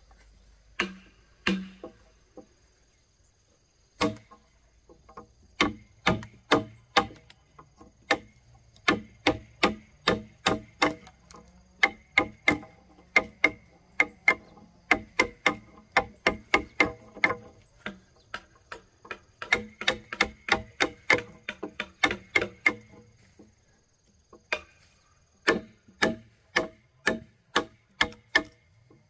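Hand-tool blows on timber while working a house frame: runs of sharp, evenly paced strikes, about three a second, broken by short pauses.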